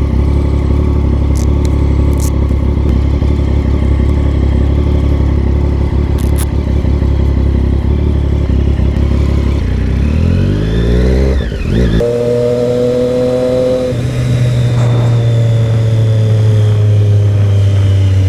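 Motor vehicle engine running steadily, then accelerating with a rising pitch, dropping back in pitch at two gear changes near the end and running on in a higher gear.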